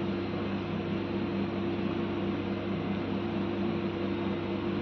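Electric sanding machine with a 320-grit disc running steadily over body filler, together with its dust-extraction vacuum: an even whirring hiss with a steady hum.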